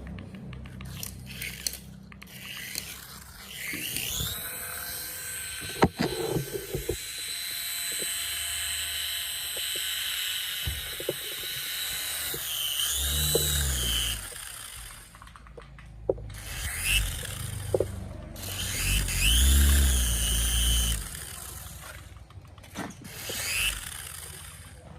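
A small electric motor whining at a high pitch. It spins up about three seconds in, runs steadily, and twice briefly dips and swings back up in pitch, with low rumbles underneath and a few sharp clicks.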